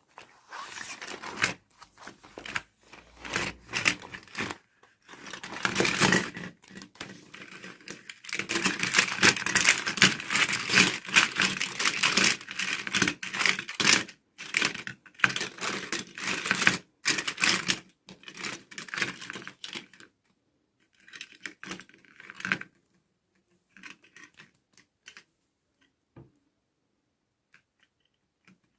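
Toy packaging being handled and opened: rapid crinkling, tearing and clicking of plastic and paper. It is densest in the middle and thins out to a few scattered ticks near the end.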